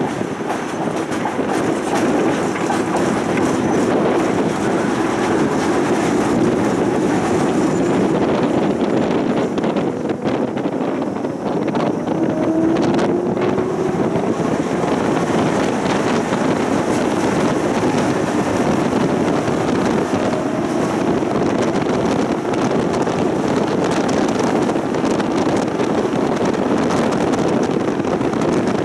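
Tram in motion, heard from inside: the steady running noise of its steel wheels on the rails, with a brief rising whine about twelve seconds in.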